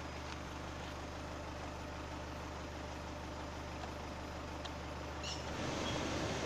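Chevrolet Tavera engine idling steadily, heard from inside the cabin. Near the end the fan-speed knob clicks and the AC blower starts up, its airflow rising into a steady hiss over the engine, showing the repaired AC now runs.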